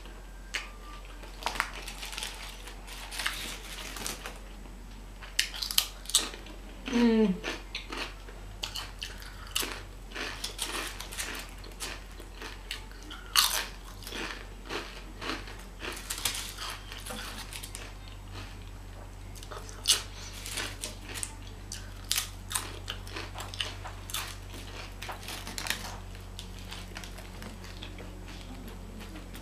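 Close-up crunching and chewing of crisp chips, eaten one by one, as sharp irregular crunches throughout, with a bite into a Subway sandwich near the end.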